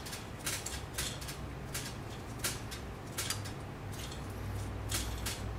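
Plastic bowstring serving jig being flicked round and round the string as serving thread winds on, giving light, irregular clicks and ticks about one or two a second.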